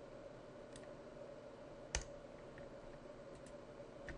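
A few faint clicks from a computer mouse and keyboard, one sharper click about two seconds in, over a steady hum.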